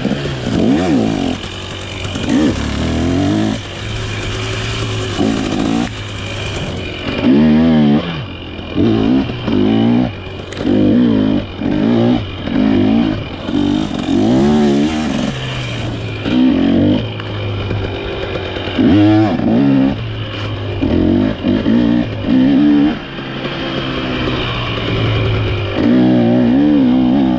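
KTM TBI two-stroke dirt bike engine revving in many short bursts, the throttle opened and closed again and again so the pitch rises and falls.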